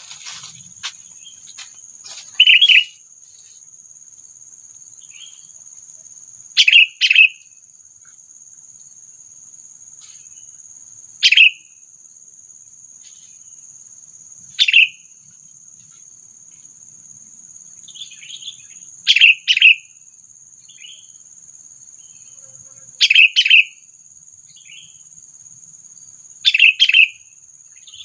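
Sooty-headed bulbul (kutilang) giving short, loud calls every few seconds, often two in quick succession, as a decoy bird calling to draw in rival bulbuls. A steady high insect drone runs underneath.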